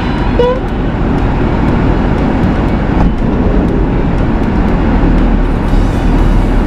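Steady loud rushing noise with a low rumble, from a running vehicle.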